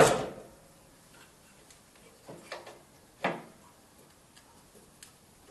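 A sharp metallic clank with a short ringing decay, a few light clicks, and a second clank about three seconds in: steel tools and parts knocking while the blade guide bearing assembly of a 4 x 6 metal bandsaw is refitted.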